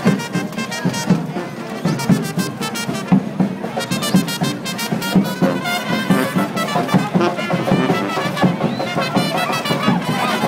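Street brass band with drums playing lively festival music, trumpets and trombones over a busy drum beat.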